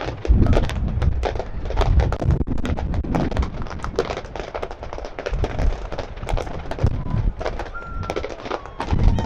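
Fireworks going off: a dense, rapid run of sharp pops and crackles over low thuds, with a couple of faint whistles in the second half.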